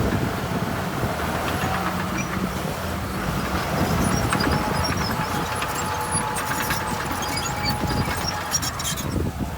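Heavy diesel earthmoving machinery running steadily, a low engine hum with scattered clicks and rattles of metal and material, thickest in the second half.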